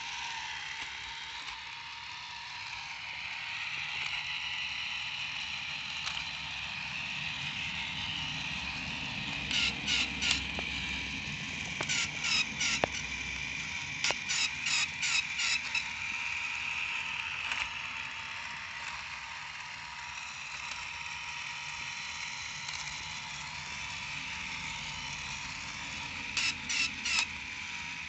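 Tomy Spotbot toy robot dog walking: a steady whir of its battery-driven motor and gears, broken every few seconds by short runs of four or five quick ratchet-like clicks, the toy's own mechanically made sound. The click runs come several times between about ten and fifteen seconds in and again near the end.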